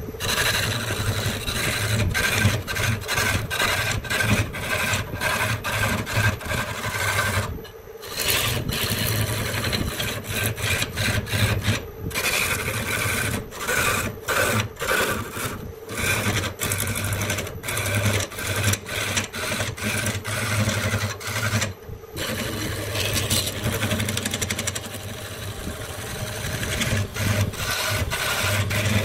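Wood being shaped with abrasive scraping tool strokes, over a steady low hum, the sound breaking off abruptly every few seconds.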